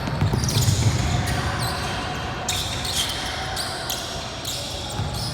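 Basketball game: the ball bouncing on the court, with a few short high shoe squeaks over a steady low rumble of players and crowd.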